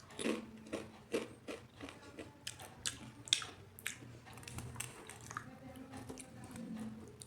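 A person eating close to the microphone: chewing, with several sharp crunchy bites at irregular moments, the strongest in the first half.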